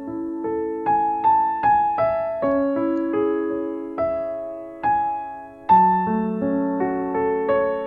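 Background piano music: a gentle melody of single notes and chords, each note struck and then fading.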